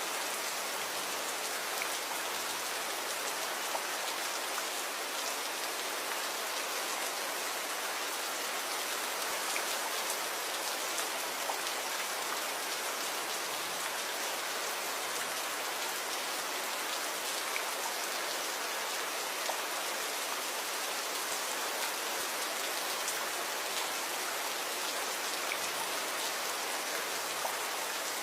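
Steady rain with scattered individual drops ticking on a surface.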